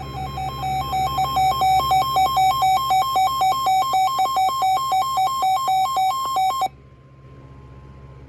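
Weather radio alert alarm for a severe thunderstorm warning: a loud electronic two-tone beeping that alternates between a lower and a higher pitch about three to four times a second, then cuts off suddenly, leaving a faint steady tone.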